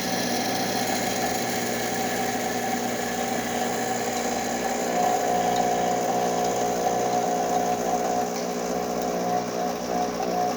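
Rancilio Silvia espresso machine's vibratory pump buzzing steadily as water runs through the hot group head in a cooling flush after steaming, with a hiss of steam from the overheated water. A steadier, higher tone joins about halfway through.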